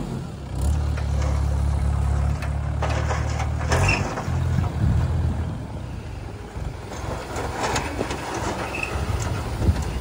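Mahindra 475 DI tractor's diesel engine running with a steady low drone while its hydraulic tipping trailer dumps a load of soil. About four seconds in, the steady drone breaks up into an uneven rumble with scattered knocks as earth slides out of the raised trailer.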